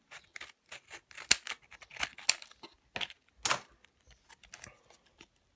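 Card-backed plastic blister pack being cut open with a small cutting tool: a run of irregular sharp snips and crackles of plastic and card.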